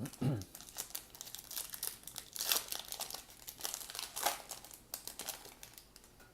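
Foil wrapper of a baseball card pack crinkling as it is torn open and the cards are pulled out, a dense run of crackles with the loudest rustles about two and a half and four seconds in.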